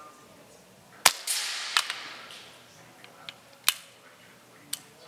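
A single shot from a BSA R10 Gold Star SE .177 pre-charged pneumatic air rifle about a second in, a sharp crack whose report trails off over about a second. A few lighter sharp clicks follow.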